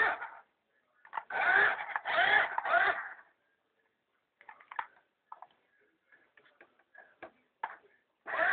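Small electric motor of a toy RC car whirring in short bursts, each rising and then falling in pitch: three bursts in the first three seconds and another near the end. In between there are scattered light clicks and taps.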